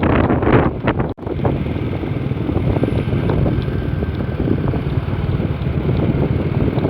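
Container truck's diesel engine running with a steady low rumble, and wind buffeting the microphone. The sound breaks off for an instant about a second in.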